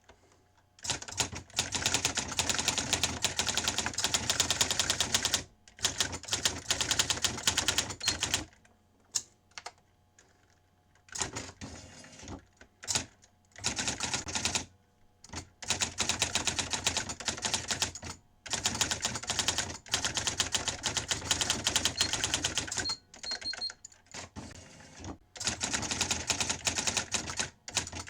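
Sears Electronic Communicator 2 daisy wheel typewriter typing: fast runs of sharp clicking strikes lasting a few seconds each, broken by short pauses.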